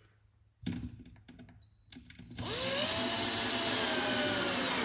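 Cordless drill driving a screw into the corner of a wooden hive box. A knock about half a second in, then the drill's motor starts about two and a half seconds in, its whine rising as it spins up and then dropping slightly as the screw goes in.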